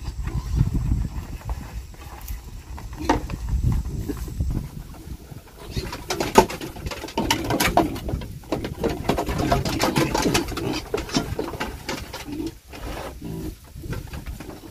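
Domestic pigs grunting, low and repeated. From about six seconds in, many short knocks are mixed in.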